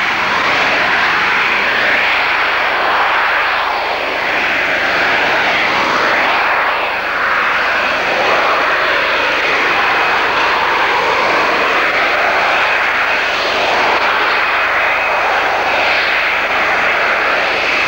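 Harrier jump jet's Rolls-Royce Pegasus engine at high thrust holding the jet in a hover and slow jet-borne flight: loud, steady jet noise with a slow swirling sweep rising and falling through it.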